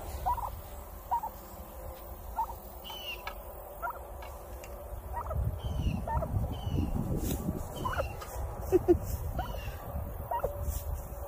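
Turkey hen giving short, soft rising chirps about once a second while she forages. A low rustling noise runs underneath through the middle.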